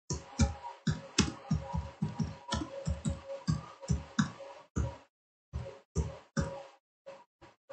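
Typing on a computer keyboard: a quick, irregular run of key clicks that thins out to a few scattered strokes for the last couple of seconds.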